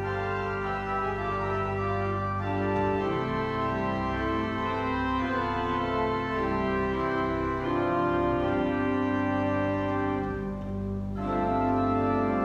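Church organ playing slow, sustained chords that change every second or so. Just before eleven seconds the upper notes thin out and the sound dips, then a fuller, brighter chord comes in.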